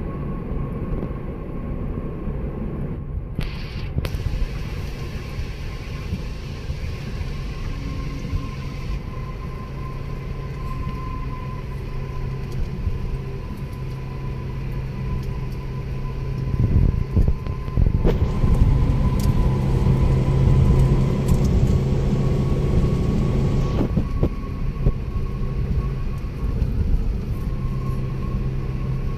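Car cabin road noise at highway speed: a steady low rumble of tyres and engine with a faint steady whine, swelling louder and hissier for several seconds in the second half before settling again.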